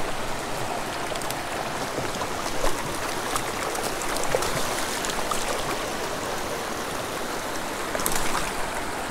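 Small rocky mountain creek running steadily over its stony bed, with a few faint clicks.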